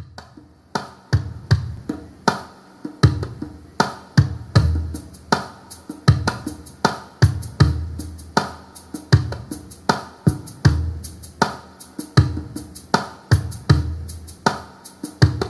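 Drum beat playing on its own in a song: a steady pattern of kick-drum thumps and sharper snare or hi-hat strikes, with no singing or guitar.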